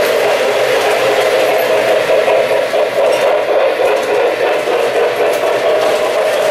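O-gauge model trains running on the layout's three-rail track: a steady, continuous whirring rumble of wheels and motors.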